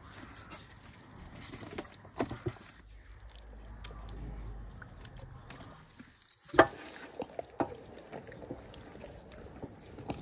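Raw whole chickens being handled and pressed down by hand in a metal colander: wet slapping and squelching of skin and meat, with a few sharp knocks, the loudest about six and a half seconds in.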